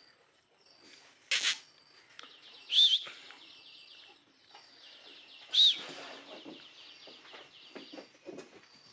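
Small birds chirping: two sharp chirps about three seconds apart stand out over a fast, high twittering, with a short scratchy call a little over a second in.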